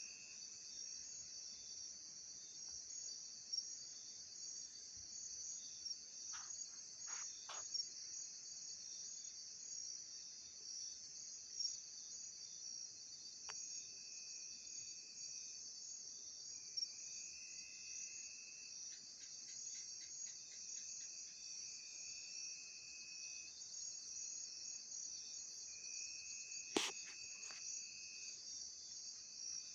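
Night-time chorus of crickets and other insects: a steady, high-pitched trilling, with a lower trill that comes and goes every few seconds. A few short sharp chirps come about a quarter of the way in, and there is a sharp click near the end.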